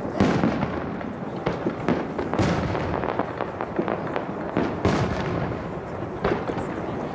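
Aerial firework shells bursting in the sky: a string of sharp bangs, roughly one every second or so, over continuous crackling.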